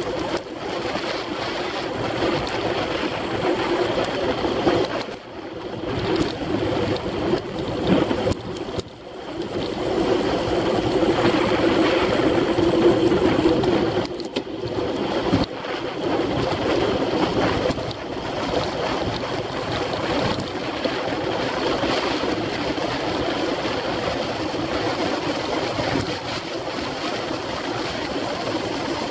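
Wind rushing and buffeting over an action camera's microphone on a road bike's handlebars, mixed with tyre rush on asphalt, at a fast 40 to 60 km/h. It eases briefly twice in the first ten seconds, then holds steady.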